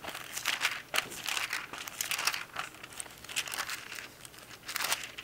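Thin Bible pages rustling as they are flipped through by hand to find a passage, in a run of quick, irregular page turns, the strongest about a second in and near the end.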